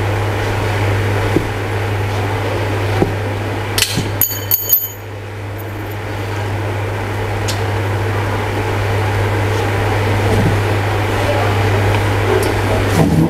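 Metal chair frame being assembled by hand: a few light clicks and clinks of bolts and square steel tubing, a cluster with a short metallic ring about four seconds in. A steady hum and hiss run underneath.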